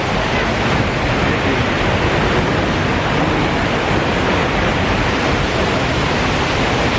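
Waterfall pouring close by: a loud, steady rush of falling water that does not let up.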